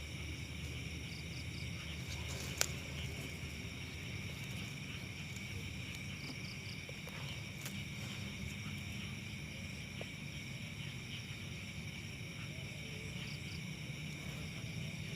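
Steady chorus of insects, a continuous shrill layer, over a low hum, with a single sharp click about two and a half seconds in.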